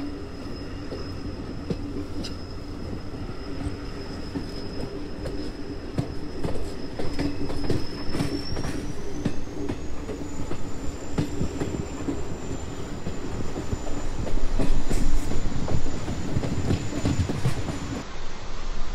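Train running on the rails: a steady rumble with rail clacks and a thin high wheel squeal that rises in pitch about halfway through, getting louder later on. About a second before the end it cuts abruptly to a steady hiss.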